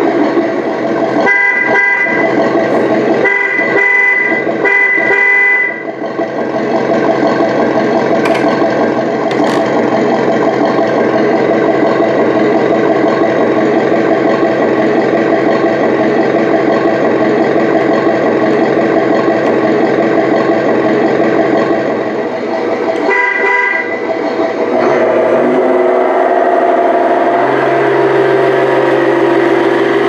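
Tamiya Toyota Tundra High Lift RC truck's sound unit playing a loud simulated truck engine running steadily, with three horn honks in the first six seconds and another about 23 seconds in. Near the end the engine sound changes pitch as the truck drives off.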